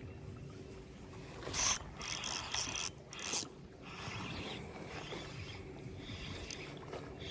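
A fishing reel being cranked, its gears whirring and clicking, with a few short louder bursts in the first half.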